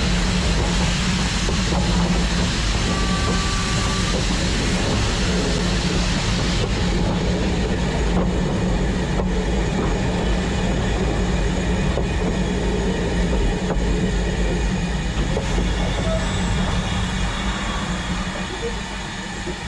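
LMS Black 5 4-6-0 steam locomotive close by: a steady loud rumble and hiss, with a few clanks about eight to nine seconds in, easing off slightly near the end.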